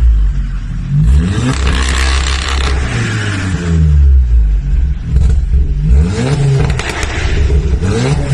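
Car engine revving several times, the pitch sweeping up and falling back with each rev.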